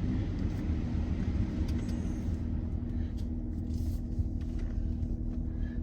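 Car engine and road rumble heard from inside the cabin as the car moves slowly, with a steady low hum joining about halfway through.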